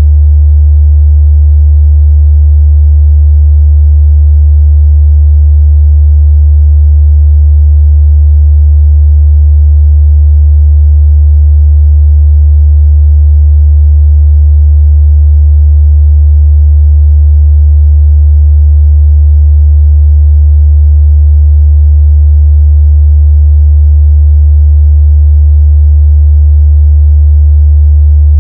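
Steady electronic meditation 'frequency' tone: a loud, low, unchanging hum with a series of fainter, higher steady tones above it.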